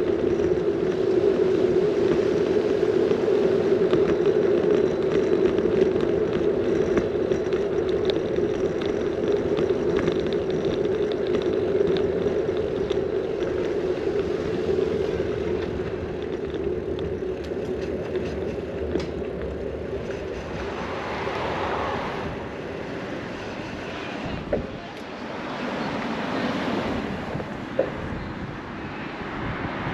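Bicycle rolling along a rough, cracked asphalt street: a steady rumble of tyre and road noise mixed with wind, heard through the handlebar-mounted camera's fur-shielded microphone. The rumble eases in the second half, and a car approaches near the end.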